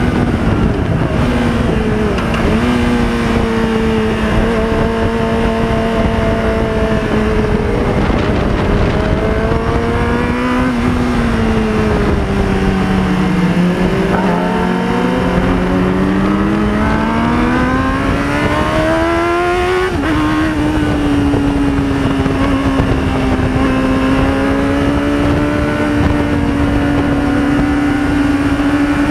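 Onboard sound of a 2005 Yamaha YZF-R6's inline-four engine, running through a Roadsitalia slip-on silencer with its dB killer removed, at speed on a race track. The revs fall and rise with the throttle, then climb steadily for several seconds and drop sharply about two-thirds of the way in at a gear change. The engine then holds a steady note, with a constant rushing noise underneath.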